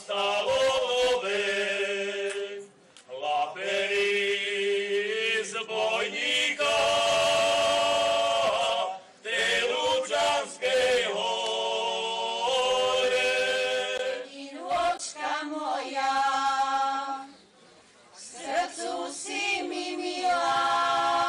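A group of men singing a Slovak folk song unaccompanied in several-part harmony, holding long notes in phrases with short breaks between. Near the end a group of women starts another song, also unaccompanied.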